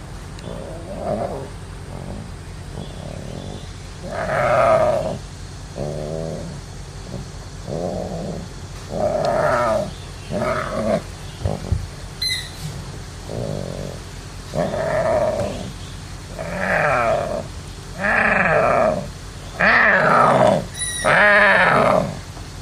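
Tiger cub calling, a series of about a dozen short cries, each under a second, louder and more frequent from a few seconds in.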